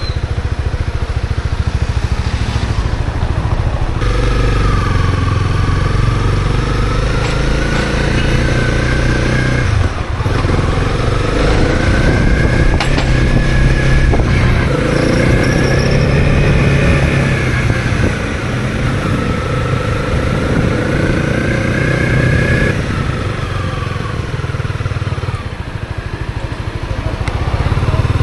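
Honda CB250R's single-cylinder engine running under way, its pitch rising and falling as the throttle opens and closes, with a brief drop about ten seconds in and another near the end.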